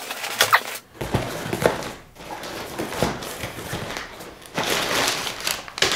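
Cardboard box and parcel tape being ripped open by hand, in a series of irregular tearing rips and crunches.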